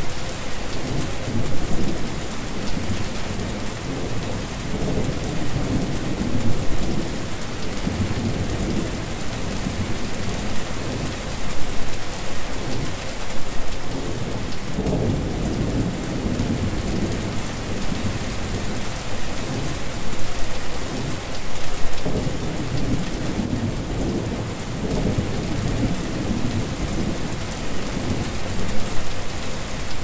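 Steady rain falling onto a wet surface: a dense, even hiss of many drops, with a low rumble underneath that swells and fades every few seconds.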